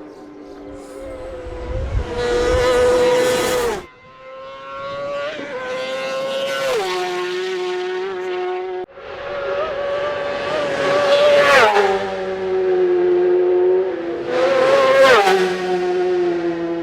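Racing motorcycle engines at high revs in a series of short cuts. One bike rushes past about two seconds in, then the engine note holds steady and high and falls sharply in pitch three times.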